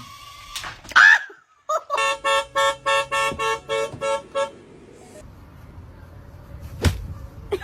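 A rapid series of short horn-like honks at one steady pitch, about four a second for a couple of seconds, then a single sharp knock later on.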